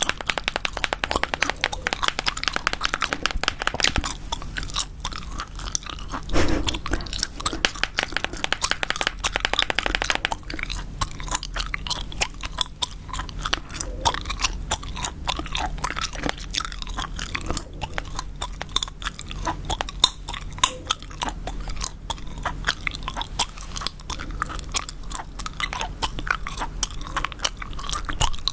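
Gum chewed right at the microphone: quick, wet smacking clicks, one after another, busier near the start and again about eight to ten seconds in.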